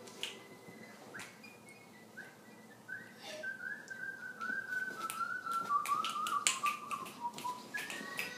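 A whistled melody of short notes stepping down in pitch over several seconds, with another note starting near the end, over many sharp clicks like finger snaps.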